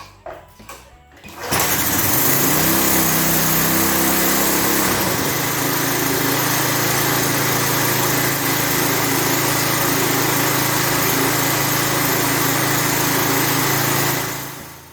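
The lawn edger's 3.5 HP Tecumseh single-cylinder engine starts about a second and a half in. It runs fast at first, settles to a lower, steady speed a few seconds later, and shuts off near the end. It runs smoothly now that its air filter is properly installed.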